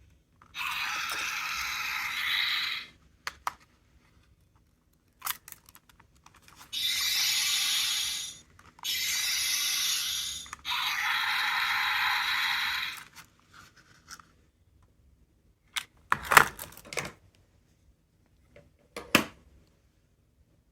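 Sound-making capsule toy played through its tiny speaker: four hissing sound effects of about two seconds each, cut on and off sharply. Between them come small plastic clicks and handling knocks, with a few louder knocks near the end.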